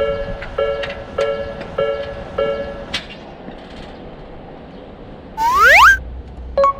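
Japanese railroad crossing alarm ringing its repeating two-tone 'kan kan', a little under two strikes a second, stopping about three seconds in. Then a loud rising whistle-like glide, a cartoon sound effect, followed by a single short ding near the end.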